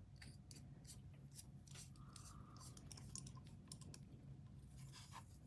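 Faint small clicks and ticks of a small screwdriver turning a folding knife's pivot screw as it is threaded in and tightened, scattered irregularly over a low hum.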